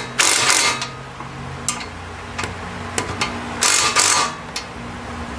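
Hand tools at work on a car's suspension: several sharp metal clinks and taps, with two short rasping bursts, one near the start and one just before the end.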